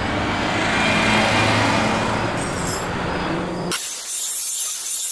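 A dense rumbling noise with a steady low hum slowly builds in level, then cuts off abruptly near the end into a harsh high hiss.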